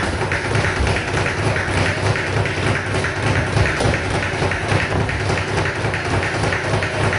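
Boxing sparring: a constant run of quick thuds and taps from feet stepping and shuffling on the ring canvas, mixed with gloved punches landing.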